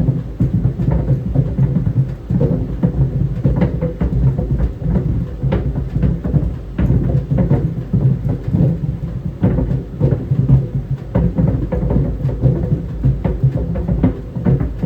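Tennis balls tumbling in a running clothes dryer: a steady low rumble from the drum with a faint hum, broken by irregular thuds and knocks as the balls hit the drum.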